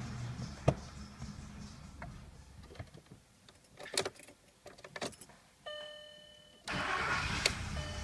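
Volkswagen VR6 car's ignition being switched off and back on during a no-start: sharp key clicks, an electronic warning chime held for about a second, then a sudden rush of noise and a click as the ignition comes back on and the low hum of the car's electrics returns.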